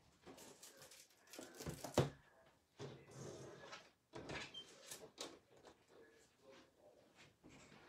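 Scattered handling noises: short rustles and knocks of things being moved about, with one sharp knock about two seconds in.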